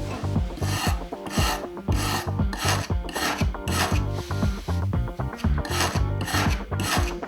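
A run of about ten rasping, scraping strokes, evenly spaced and each under a second long, over background music with a steady beat.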